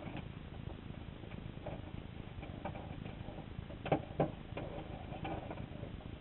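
Underwater sound picked up through a GoPro's waterproof housing inside a submerged crawdad trap: a low steady rumble with scattered faint clicks and ticks, and two sharper clicks close together about four seconds in.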